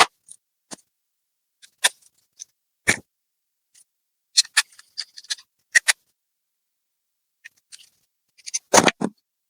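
Small tools and laptop parts being handled. There are scattered sharp clicks and taps, a quick cluster of them about halfway through, and a longer, louder clatter near the end, with dead silence between them.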